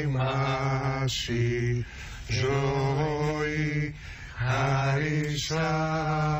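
A male voice singing Greek Orthodox (Byzantine) church chant in long, drawn-out phrases over a steady low held note. There are two short breaks, about two and four seconds in.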